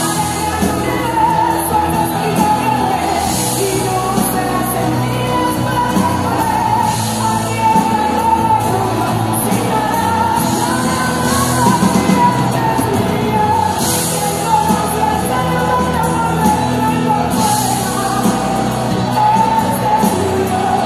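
A woman sings a Spanish-language worship song into a handheld microphone, belting at times, with live band accompaniment that includes an accordion.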